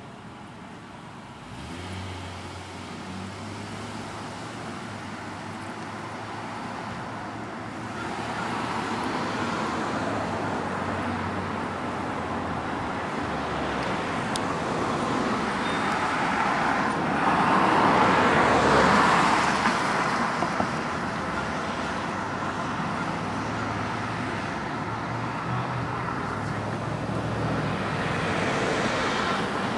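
Road traffic passing through an intersection: a steady wash of car noise that builds, peaks as a vehicle passes close a little past halfway, then eases off.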